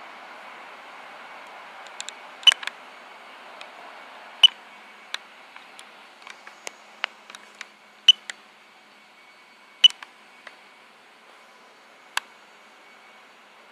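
A bird pecking and striking at a camera: irregular sharp taps and clicks on the housing, some in quick pairs, over a steady hiss.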